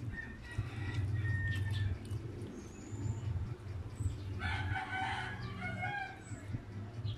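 A rooster crowing once, a long crow of about two seconds beginning about four seconds in.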